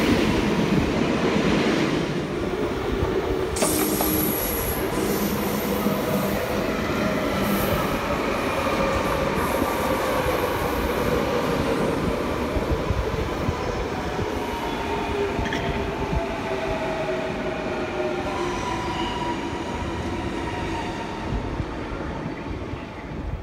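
Double-deck electric commuter trains running past on the rails: a steady rumble of wheels on track, with high tones that glide slowly in pitch over it.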